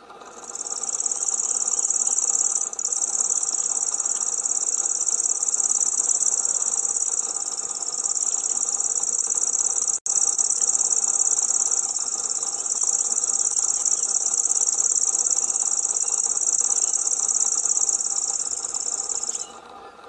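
Common grasshopper warbler reeling: one long, very high, insect-like trill held without a pause, broken for an instant about halfway, stopping just before the end.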